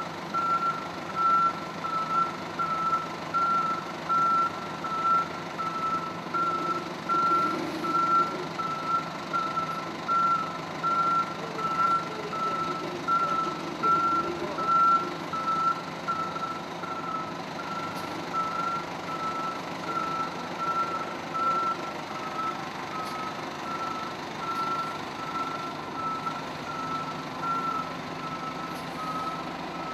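Fire engine's back-up alarm sounding a steady, evenly repeated beep as the rig reverses, over its diesel engine running. The beeps grow slightly weaker in the last third.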